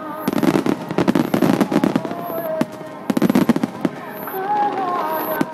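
Aerial fireworks bursting in rapid, dense succession, a crackling barrage of reports with heavy low booms. A melody with a voice runs faintly beneath, clearer in the second half.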